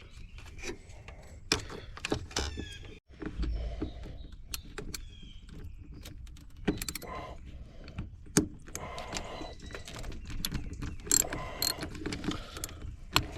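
Hand tools clicking, clinking and rattling against metal in irregular sharp knocks while a vehicle winch is being disconnected from its bumper mount.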